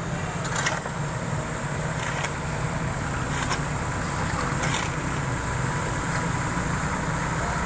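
Steady low rumble of a running engine, with a few faint clicks.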